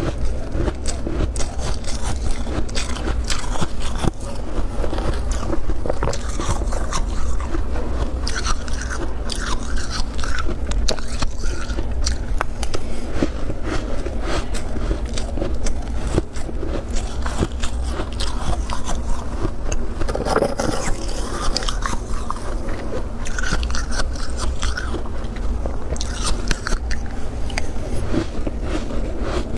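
Close-up biting and chewing of thick, powdery freezer frost: dense, continuous crunching and crackling, with a steady low hum underneath.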